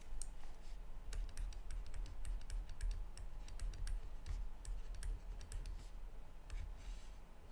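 Light, irregular clicks and taps of a stylus on a tablet or pen-display screen while handwriting is written, over a low steady hum.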